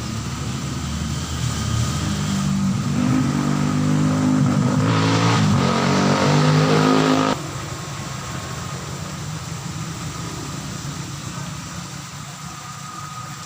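A motor vehicle's engine nearby, speeding up: its pitch and loudness rise over several seconds, then it cuts off abruptly about seven seconds in, leaving a quieter steady hum that fades.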